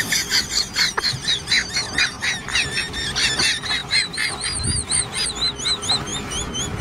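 Rhythmic squeaking, about two to three wavering squeaks a second, from a wet object being scrubbed by hand with a soapy sponge.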